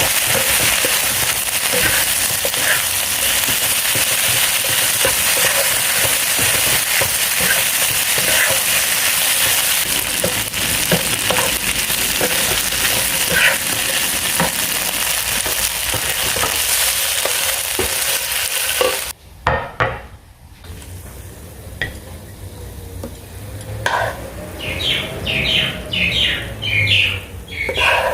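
Vegetarian chicken stir-frying in a hot pan with sauce: a steady sizzle with scattered clicks of a spatula stirring. About two-thirds of the way through, the sizzle cuts off abruptly. Near the end comes a quick run of about a dozen scraping strokes.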